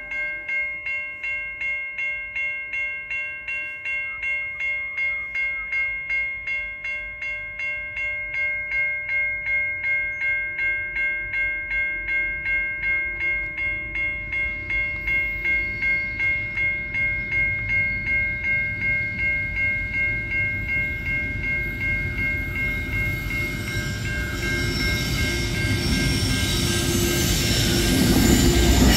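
Railway level crossing bell ringing in even strokes, about two to three a second. A diesel freight train approaches, its rumble growing from about halfway and becoming loud near the end as the locomotives reach the crossing.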